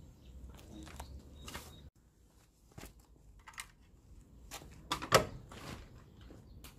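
Scattered light clicks and knocks, with one sharper, louder knock about five seconds in.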